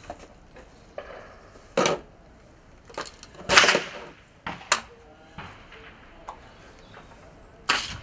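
Knocks and clatters of a scoped rifle being handled and set up on a sandbag shooting rest, about four distinct knocks, the loudest about three and a half seconds in.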